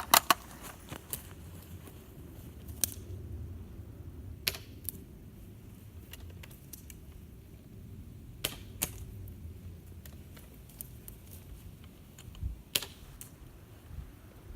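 Scattered single sharp snaps, a few seconds apart, typical of airsoft guns firing single shots, over a low steady rumble.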